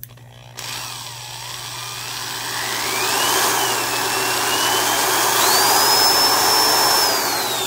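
Older American-made Porter-Cable corded drill running free on its variable-speed trigger. The motor whine dips, rises and falls as the trigger is worked, jumps to a steady top speed about five and a half seconds in, and starts winding down near the end as the trigger is let go.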